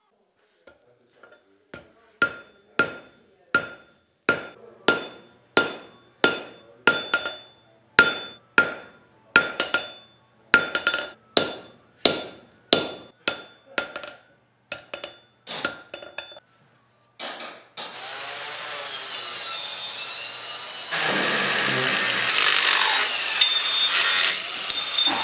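Hand-hammer blows on a chisel held against glowing steel on an anvil: about twenty ringing strikes at a steady beat of roughly three every two seconds. Then an angle grinder starts up, its pitch wavering, and with a few seconds left bites into steel with a loud grinding noise.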